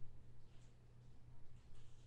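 Faint soft rustles of trading cards being handled, a couple of light brushes, over a steady low electrical hum.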